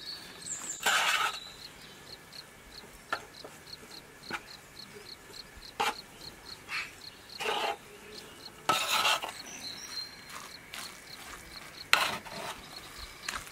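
A spoon stirring and scraping a thick, floury vegetable mixture against the side of a large metal pot, in irregular strokes, the loudest about a second in and around nine seconds in. A steady high chirping, about three a second, runs underneath.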